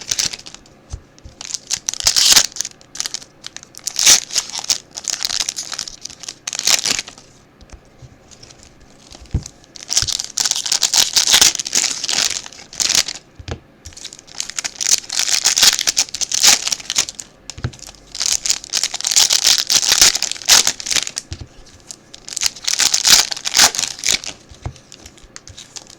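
Wrappers of trading-card packs being torn open and crinkled by hand, in repeated bouts of rustling with short pauses between them.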